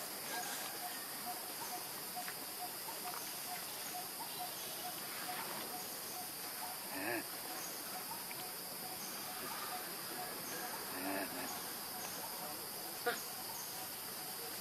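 Insect chorus: a steady high hiss with a regular chirping of about three pulses a second. Two short faint calls break in about seven and eleven seconds in, and a single sharp click comes near the end.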